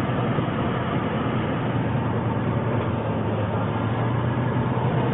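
Motorhome cab interior while driving: steady engine and road noise with a constant low hum.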